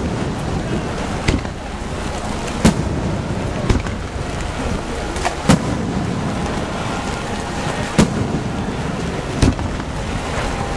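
Aerial firework shells bursting overhead in sharp bangs, about six in ten seconds, over a steady hiss of rain.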